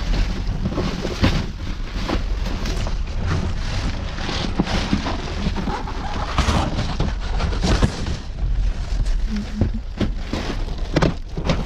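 Cardboard boxes and plastic sheeting being shifted and pulled about inside a metal dumpster: rustling and crinkling with many irregular knocks and thuds, over a steady low rumble.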